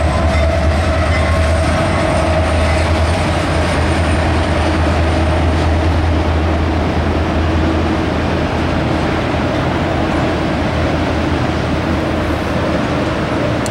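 Union Pacific diesel-electric locomotive hauling a freight train past, its engine drone low and steady, with the rolling rumble of autorack cars on the rails taking over as the locomotive moves on.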